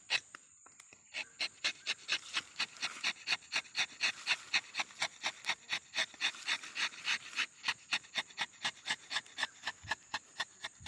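Rubber-tapping knife shaving a thin strip of bark from a rubber tree's tapping cut in quick, even rasping strokes, about four or five a second.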